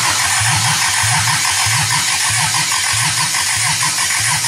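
Toyota 18RG twin-cam four-cylinder engine being cranked over by its starter motor, a steady whine with a regular chugging about two to three times a second, without catching. The carburettor float bowls have not yet been filled with fuel.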